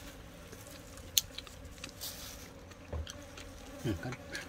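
Flies buzzing faintly around the food, with light ticks and crinkles from a plastic bag being handled and one sharp click about a second in.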